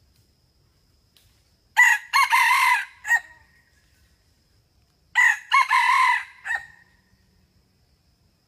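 Red junglefowl rooster crowing twice, a few seconds apart. Each crow is short and clipped: an opening note, a longer wavering middle note, and a brief final note.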